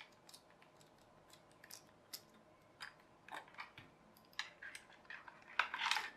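Small plastic clicks and rattles of a toy's battery compartment being opened and fresh batteries fitted, with a quick cluster of clicks near the end.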